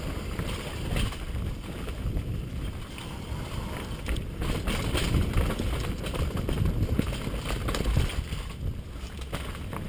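Mountain bike descending a rough dirt trail: wind buffeting the microphone as a low, steady rumble, with frequent rattles and knocks from the bike going over roots and rocks.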